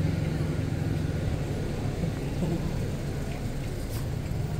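Car driving past on wet pavement, a steady low engine-and-tyre rumble that eases as it moves off.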